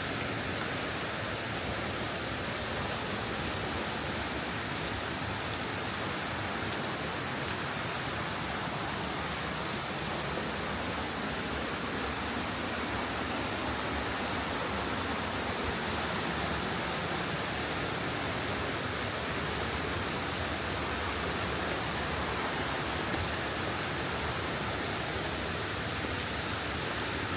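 Steady rushing roar of a nearby waterfall.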